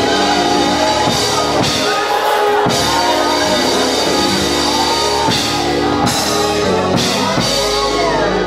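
Live gospel praise music with sustained keyboard chords, drums and cymbals, and voices singing and shouting over it.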